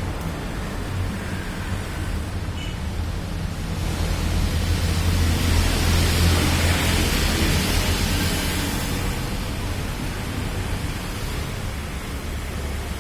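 Steady low rumble with a broad hiss that swells about four seconds in, peaks a couple of seconds later, and fades again by about nine seconds.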